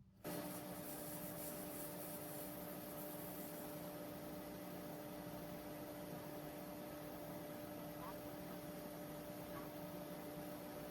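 An electric motor-driven machine running steadily with a hum and a noisy whir, switching on abruptly just after the start and cutting off suddenly near the end.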